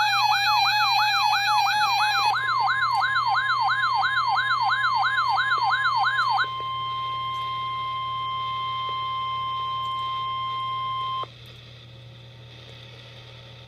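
Emergency alert tones: an electronic siren wail sweeping up in pitch about twice a second, with a steady tone beneath it for the first couple of seconds. At about six and a half seconds it gives way to a single steady tone, the National Weather Service's 1050 Hz warning alarm tone, which cuts off suddenly at about eleven seconds, leaving a faint hiss.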